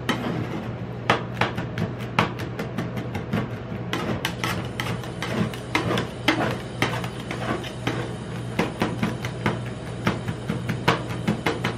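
Two metal spatulas chopping and scraping ice cream base with chocolate pieces on a stainless-steel cold plate: quick, irregular metallic taps and scrapes, several a second, over a steady low hum.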